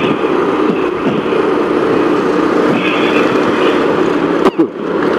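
Motorcycle engine running at a steady cruising pace, with wind and road noise on a bike-mounted camera. About four and a half seconds in there is a sharp click and a brief drop in the sound.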